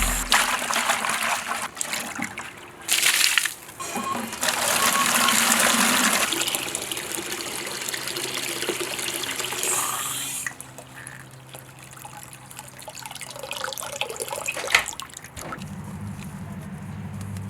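Water spraying onto a vehicle during a wash, in several strong bursts that start and stop over the first few seconds, then softer spraying and trickling.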